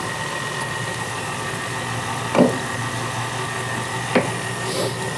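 Sauce close to a caramel simmering in a saucepan, a steady low hiss under a high steady whine and low hum. Two light knocks, about two and a half and four seconds in, as the wooden spoon is lifted out and laid down.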